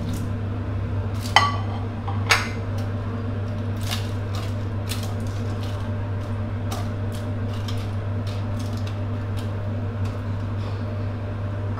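Wooden spatula knocking and scraping against a stainless steel pot as fried tofu, wheat gluten and tofu skin are pushed around in it. There are two louder knocks in the first few seconds and lighter clicks scattered after, over a steady low hum.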